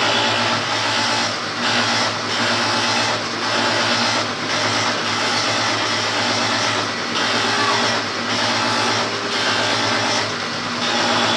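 Woodworking machine running steadily as a board is fed through it, a motor hum under a loud hiss of cutting, the noise dipping briefly every second or so.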